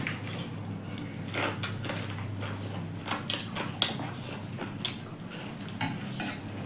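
Stainless steel plates and bowls clinking and scraping as hands scoop rice and a steel bowl is moved, with scattered eating noises between. Two sharper clinks stand out, about four and five seconds in, over a low steady hum.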